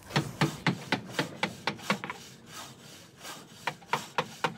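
A quick, uneven series of short rasping strokes, about three a second.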